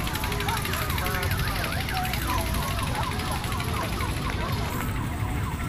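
A warbling, siren-like electronic sound, its pitch sweeping up and down about three or four times a second, over a fast, even ticking hiss that cuts off about five seconds in.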